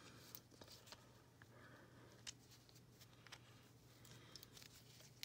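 Near silence: a few faint, scattered small clicks of plastic doll shoes being handled and pushed onto a fashion doll's feet, over a low steady hum.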